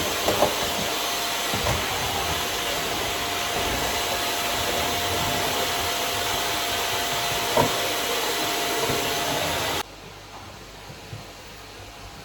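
Steady whir of an electric appliance motor with a thin steady whine, switched off abruptly about ten seconds in. A few light knocks sound over it.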